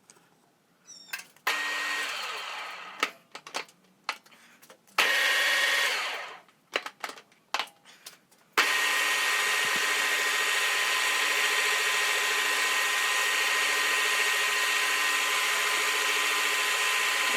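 Milling machine switched on for two short runs that each spin down, with clicks and knocks between, then running steadily with a constant whine from about eight and a half seconds in.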